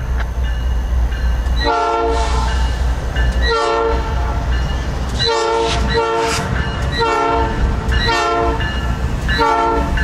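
Diesel locomotive horn on a Norfolk Southern train sounding a series of short blasts, about seven in ten seconds, over the steady low rumble of the train.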